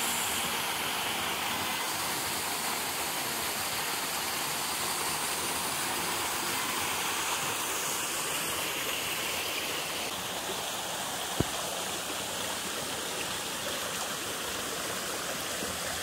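Steady rush of a small waterfall pouring into a rock pool and running on as a shallow stream over rocks. One sharp click about two thirds of the way through.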